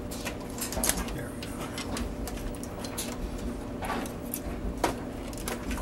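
Scattered light plastic clicks and scrapes as a circuit board is worked loose and lifted out of a Sony SLV-595 HF VCR's plastic chassis.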